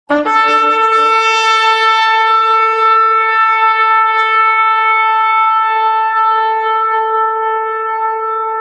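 Shofar sounded in one long held blast: it starts abruptly on a brief lower note, then jumps up to a steady, bright note with many overtones held without a break.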